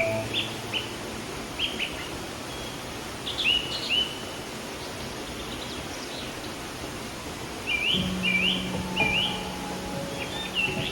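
Songbirds chirping in short, quick clusters of high notes, with pauses between, over the steady rush of a flowing stream.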